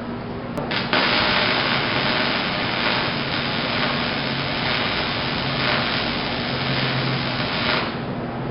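An electric welding arc on a steel welding table, starting with a click about a second in and then crackling and sizzling steadily for about seven seconds during one weld bead before cutting off near the end.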